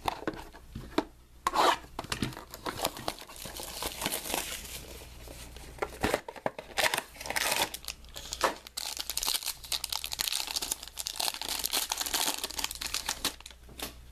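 Foil wrapper of a trading-card pack being torn open and crinkled by hand, a dense crackling that comes and goes in louder spells.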